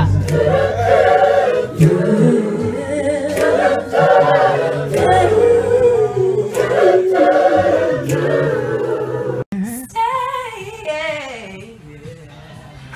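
A group of voices singing together with no instruments. About nine and a half seconds in the sound cuts abruptly to a single voice singing more quietly, fading toward the end.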